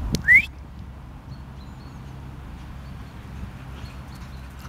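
One short, loud rising whistle, a person whistling to call the dog back, followed by a steady low rumble on the microphone.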